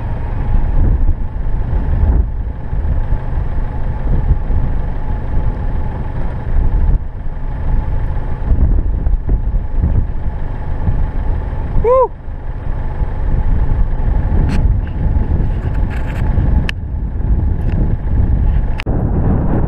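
Wind buffeting a camera microphone as a loud, uneven low rumble. Several sharp knocks come near the end as the camera is handled.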